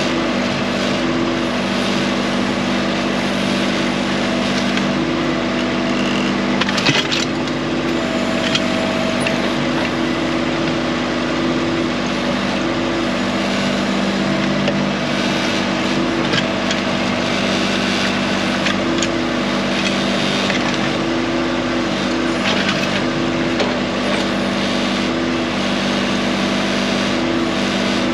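Tractor engine running steadily under the backhoe, its note shifting as the hydraulics are worked, with a few sharp knocks and cracks about seven seconds in.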